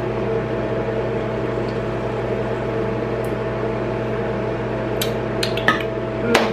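Steady hum of a bathroom exhaust fan running, with a low drone and a higher whine; a few short clicks near the end.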